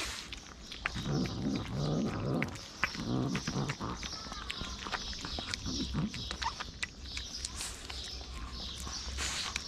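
Kittens eating wet cat food from a plate close to the microphone: rapid, irregular wet smacking and chewing clicks. A few low muffled vocal sounds come in short patches about a second, three seconds and six seconds in.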